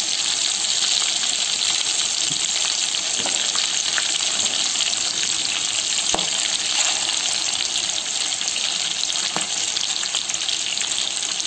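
Hot oil sizzling steadily as stuffed small brinjals fry in a kadai on high flame, with a few sharp clicks.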